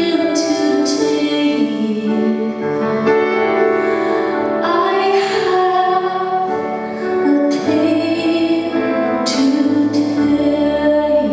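A woman singing long held notes live over solo piano, with chords struck a few times, most of them near the end.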